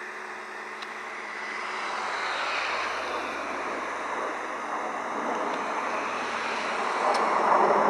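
Jet noise from a formation of CT-114 Tutor jet trainers overhead: a steady rush that swells gradually and is loudest near the end.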